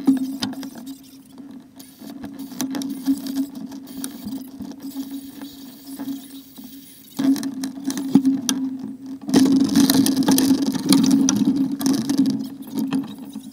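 Small motor scooter engine idling steadily. For about three seconds past the middle it runs louder, with a hiss over it.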